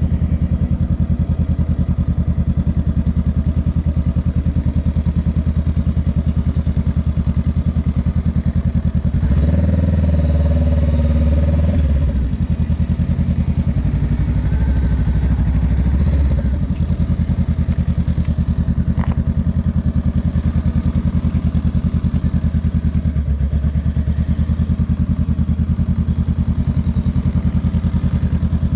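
Honda Rebel 500's parallel-twin engine running with a steady, even exhaust pulse while the bike rolls slowly. About nine seconds in it gets louder under throttle for a few seconds, then eases back to a lower, steady run.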